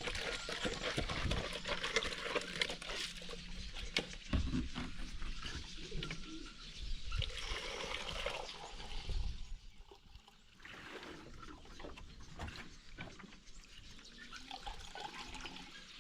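Water pouring and trickling into a container, with knocks of handling. It is loudest for about the first ten seconds, then eases to a quieter trickle and scattered small sounds.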